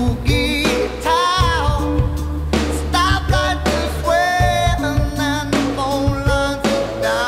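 Background music: a pop-rock song with a singing voice over bass, guitar and drums.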